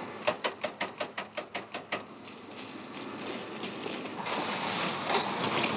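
A quick run of about a dozen sharp knocks, some six a second, under two seconds long. About four seconds in a sudden steady rushing hiss sets in as a valve on the Class 50 steam locomotive's hose connection is opened.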